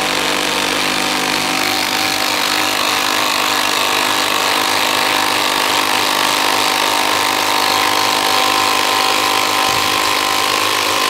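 12-volt impact drivers, one of them a Bosch, running continuously under load on fasteners, sounding together as a steady hammering whir.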